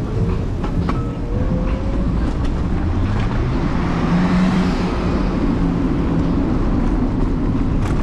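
Ride noise from an electric scooter with the camera on its handlebars: steady road rumble and wind on the microphone. A motor whine rises in pitch over the first couple of seconds, and a hiss swells and fades around the middle.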